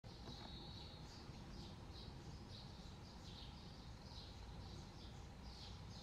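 Common kingfishers calling: a string of thin, high-pitched notes, about two a second, opening with a longer held note, over faint low background noise.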